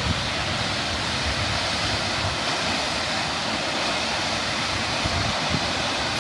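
Steady rush of a large waterfall, an even hiss of falling water at a constant level.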